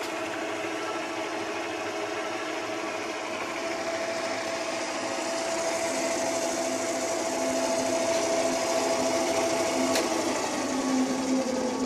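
Hobart 80-quart mixer running steadily in second speed, with a steady whine. About ten seconds in the stop button clicks and the motor begins to wind down, its pitch falling.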